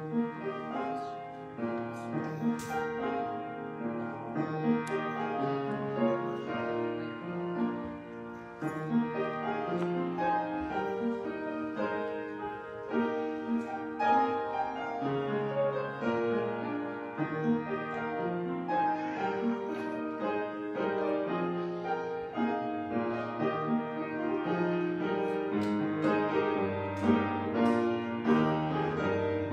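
Solo piano playing a slow, classical-style piece of melody and chords, which begins abruptly at the start.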